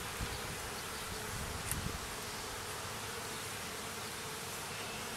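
Honey bees buzzing steadily around an opened hive as its frames are lifted out, a colony that is a little active.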